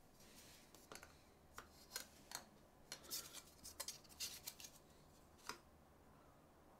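Faint handling sounds of measuring a small baitcasting reel's handle: scattered light clicks and short scrapes of a measuring tool against the reel, the last click about five and a half seconds in.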